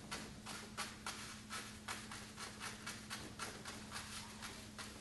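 Chinese painting brush stroking and dabbing ink onto paper: a faint, irregular run of short brushing sounds, about three a second.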